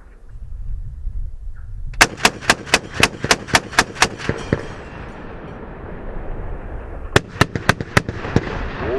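M2 .50 caliber heavy machine gun firing two bursts: a longer burst of about ten rounds about two seconds in, and a shorter burst of about five rounds near the end.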